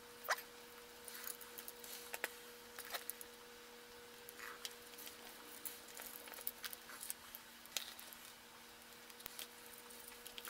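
Servo wires and their plastic extension plugs being handled: scattered small clicks and rustles, the sharpest click just after the start, over a faint steady hum.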